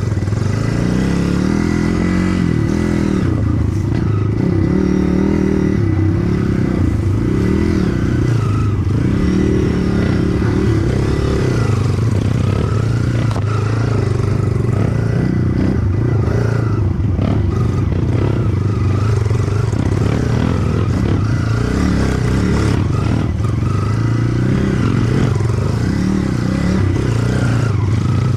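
Trail motorcycle engine running at low revs while being ridden slowly along a narrow dirt track, the revs rising and falling a little with the throttle. There are occasional knocks from the bike over the rough ground.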